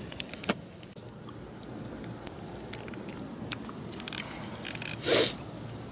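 Campfire embers crackling, with scattered small pops over a steady hiss. About four to five seconds in comes a short run of metal clinks and a louder rustle from the wire grill basket being handled.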